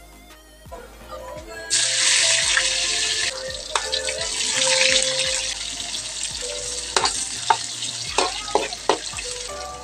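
Sliced onions and garlic frying in hot oil in a wok: a loud sizzle starts suddenly about two seconds in and goes on steadily. A metal ladle scrapes and knocks against the wok several times near the end.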